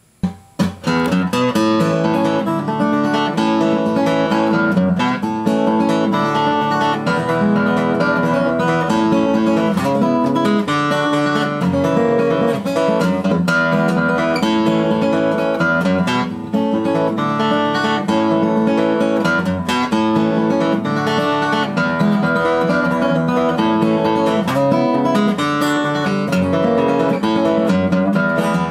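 Gibson flat-top acoustic guitar played by hand in a steady flow of plucked notes and chords, starting about half a second in.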